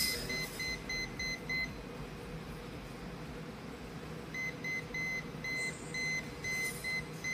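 UNI-T UT61E+ multimeter's non-contact voltage (NCV) alarm beeping: short high-pitched beeps about four a second, stopping after under two seconds and starting again a few seconds later at a less even pace. The alarm is the sign that the meter's tip senses the electric field of an energised mains wire.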